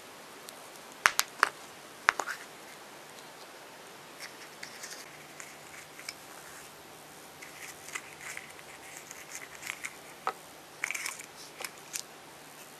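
Plastic toy capsule from a chocolate surprise egg snapping open with a few sharp clicks about a second in, followed by light rustling and crinkling of a small wrapper and soft clicks of small plastic toy pieces being handled and set down.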